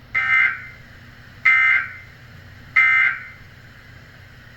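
Emergency Alert System end-of-message signal: three short buzzy bursts of SAME digital data tones, about a second and a quarter apart, marking the close of the alert test.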